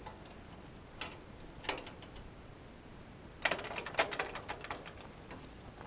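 Light clicks and clatter from hands working the controls and wiring of a Ford 8N tractor before starting it. There are two single clicks, then a quick run of clicks and rattles about three and a half seconds in. The engine is not yet running.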